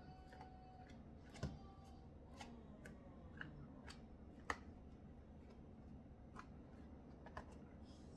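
Quiet hand-mixing of a stiff sourdough dough in a mixing bowl: a few faint clicks and knocks of a utensil against the bowl, the sharpest about a second and a half in and about four and a half seconds in, over a low room hum.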